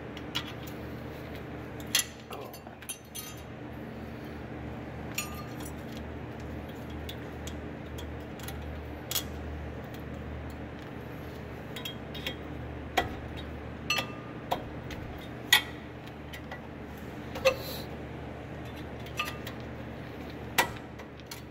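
Scattered sharp metal clinks and taps as brake pad hardware clips are worked onto the front caliper bracket of a 2015 Subaru Legacy with a small tool and gloved fingers. A steady low hum runs beneath.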